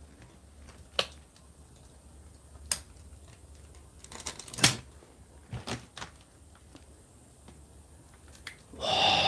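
Scattered clicks and crunches of footsteps on dry debris and grass, a few at a time with gaps between. A louder steady rushing noise comes in near the end.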